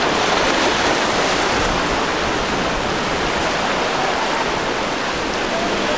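Steady rushing noise of moving water and waves.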